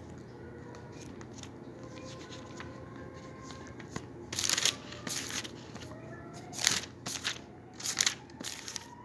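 Bible pages being turned by hand: a run of short papery rustles starting about four seconds in, over a faint steady hum.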